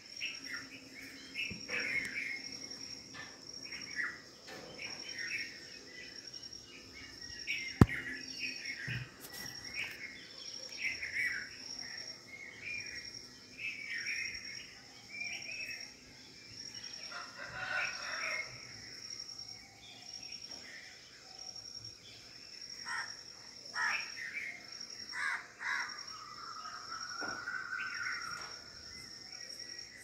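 Assorted bird chirps and calls over a steady, high insect drone. A single sharp click about eight seconds in is the loudest sound, and near the end comes one long call that rises and then falls.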